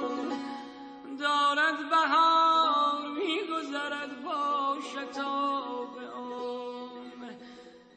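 Live Persian traditional music: an ornamented melody line with quick turns and glides over a steady drone, dying away near the end.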